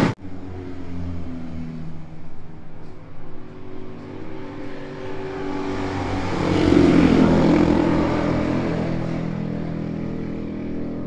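Aermacchi Ala d'Oro 350's single-cylinder four-stroke engine running. It is blipped several times at low revs, then revved up about six seconds in and held there, easing off slowly.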